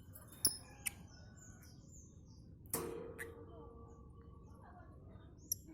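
Lovebirds chirping in short, high calls, with two sharp clicks in the first second. About halfway through comes a knock that rings on briefly as a tone.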